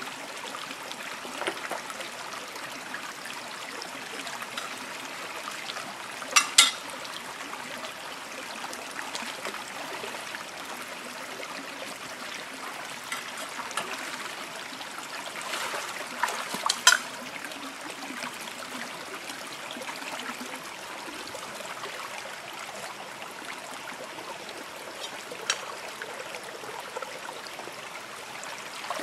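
Shallow rocky stream running steadily, with a few brief sharp splashes from someone wading, spaced several seconds apart.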